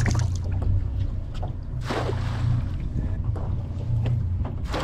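A wet shrimp cast net being gathered and thrown from a boat's bow: rustling and dripping from the net, then a swishing burst near the end as it is flung out. A steady low hum runs underneath.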